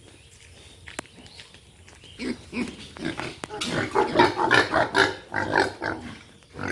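Pigs grunting in a dense run of short, overlapping calls that starts about two seconds in, after a single click.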